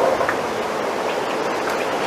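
Bamboo leaves rustling in the wind: a steady, even hiss.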